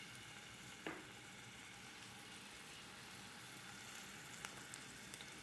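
Chopped onions sizzling faintly in oil in a pot, with a few small pops and crackles. There is a light knock about a second in.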